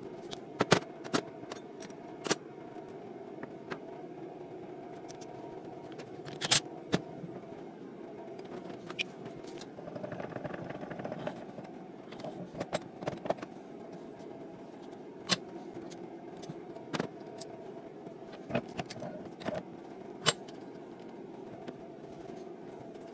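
Metal hand tools and pump parts clinking and knocking against the diesel injection pump and the bench vise during disassembly: a dozen or so short, sharp clicks scattered over a steady low hum.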